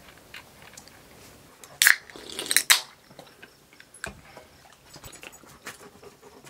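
Aluminium can of sparkling water being cracked open and drunk from: a few sharp cracks and a brief hiss about two seconds in, with smaller clicks after.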